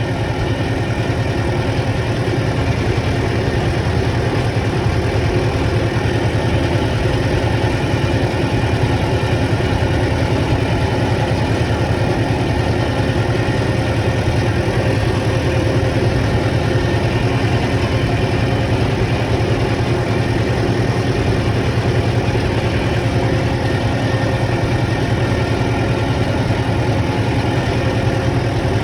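Heavy machine's engine running steadily at an even speed.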